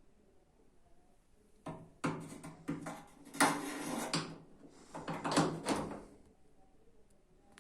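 Work noise during washing-machine disassembly: a string of knocks, clattering and scraping from parts and tools being handled, starting a little under two seconds in and dying away about six seconds in.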